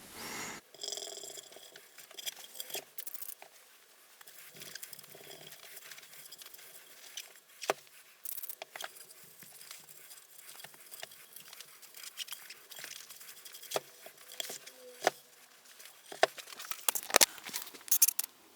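Irregular clicks, taps and scrapes of small hardware and tools being handled while an electric guitar is taken apart, with a few brief metallic rings. A denser run of louder clicks comes near the end.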